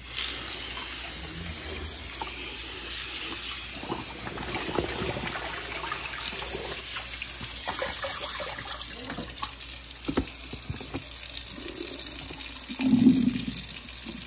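Water pouring and splashing into a kitchen sink as a plastic tub of hot soda-ash dye-soak water is dumped out, with tap water running over the tied, dyed shirt on the sink rack. A louder thump comes about a second before the end.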